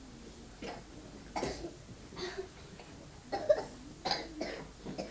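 A few scattered coughs and brief small voices, short separate sounds about a second apart, the loudest about three and a half seconds in.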